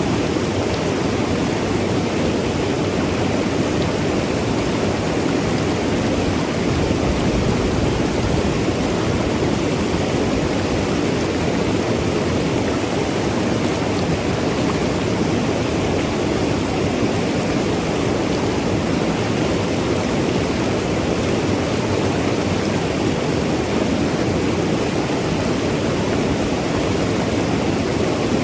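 Mountain river rushing and tumbling over rocks, a steady, even flow of water.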